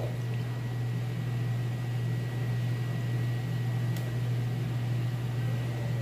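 A steady low electrical hum under a faint even hiss, with no distinct event standing out.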